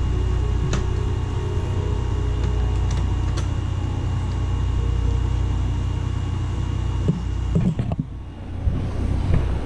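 Steady low hum with a few light clicks and knocks of small screws and parts being handled, the knocks bunching up about seven seconds in.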